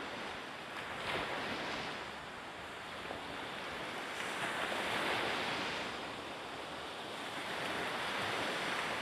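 Harbour water lapping against the quay and moored boats, mixed with wind: a steady rushing noise that swells three times.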